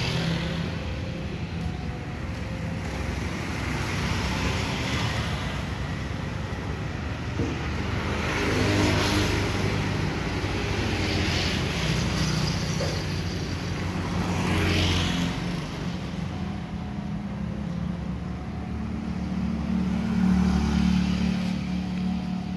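Small motorcycles and scooters passing one after another on a road over a low engine drone. Each pass swells and fades with engine and tyre noise, the clearest about nine, fifteen and twenty seconds in.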